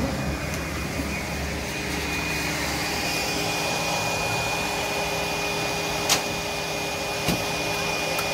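A small motor whirring steadily with a thin high whine, and two sharp clicks, about six and about seven seconds in.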